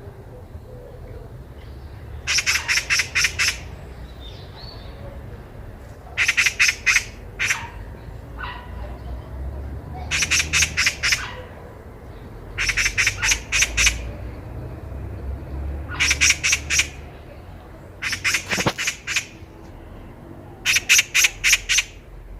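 Oriental magpie chattering: about seven harsh rattling bursts, each a quick run of rasping notes lasting around a second, coming every two to four seconds over a low steady background rumble.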